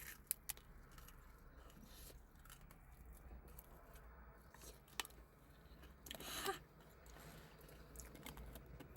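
Quiet eating sounds: a few sharp clicks, a crunchy bite into a fried onion ring about six seconds in, then faint chewing.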